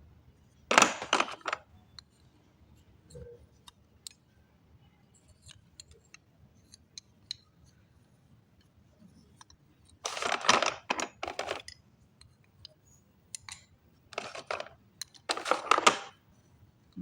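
Slate pencils being handled and unpacked, clattering against each other in four short bursts of rattling with scattered small clicks between.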